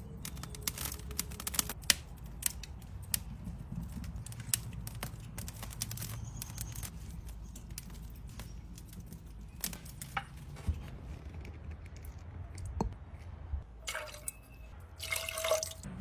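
Wet clicks and taps of raw bacon-wrapped chicken drumsticks being set down on metal grill grates, over a steady low hum. Near the end comes a short spell of liquid splashing and pouring into a steel bowl.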